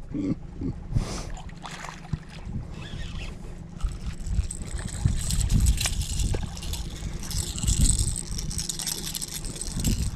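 Wind buffeting the microphone over open water, a low rumbling haze, with scattered small knocks and rustles from fishing gear being handled.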